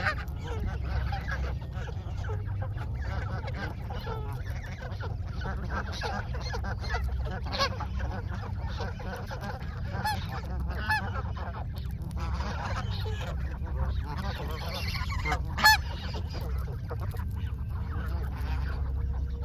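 A flock of Canada geese honking, many calls overlapping without a break, with one sharply louder honk about sixteen seconds in. A steady low rumble runs underneath.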